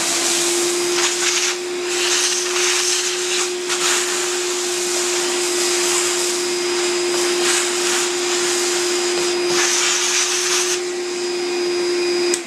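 Vacuum cleaner running steadily as its hose nozzle sucks acrylic chips off a CNC router bed, the hiss of the air rising and falling as the nozzle moves. At the very end the motor is switched off and starts to wind down.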